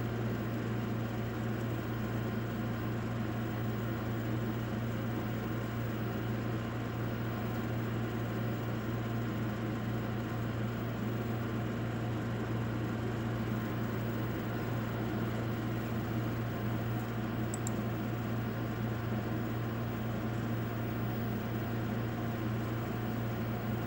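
Steady low hum under a constant hiss, unchanging throughout: room background noise with no distinct events.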